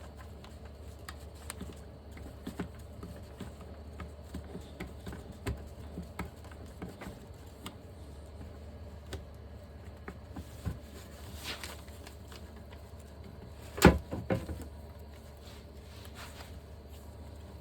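Scattered small metal clicks and taps as a brake caliper piston is pressed and twisted into its tight bore with hand tools, with one sharp knock about fourteen seconds in.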